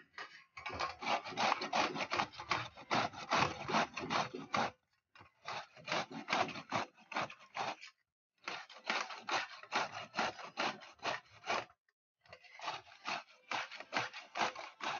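A peeled bottle gourd being grated on a stainless steel flat grater: quick rasping strokes of the soft gourd across the metal teeth, in four runs broken by short pauses.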